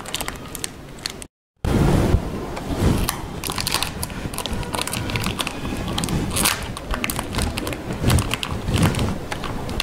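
Packaging being handled as the earphones are taken out of the phone's box: crinkling and rustling with many small clicks and taps. The sound drops out completely for a moment about a second in, then the handling comes back louder.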